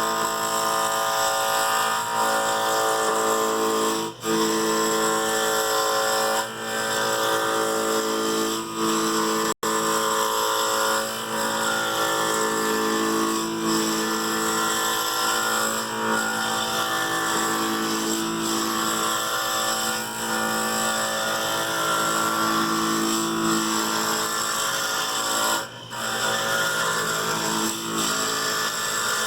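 Wood lathe running with a turning tool cutting a spinning black walnut blank, heard under background music with sustained notes. The sound dips briefly a few times, around 4 and 26 seconds in.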